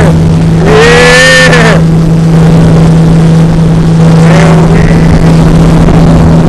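Parasail boat's engine running at speed with a steady drone, under a loud rushing noise of wind and water. A short rising-and-falling tone sounds about a second in.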